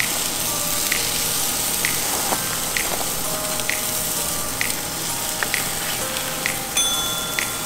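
Background music with a steady beat of about one tap a second, over a steady hiss of chicken and potatoes sizzling on a flat-top griddle.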